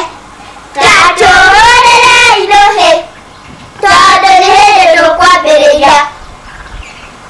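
Child singing two long drawn-out phrases of about two seconds each, with a short break between them.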